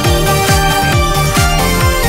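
Electronic dance-pop music: a steady kick drum beat under sustained synth notes.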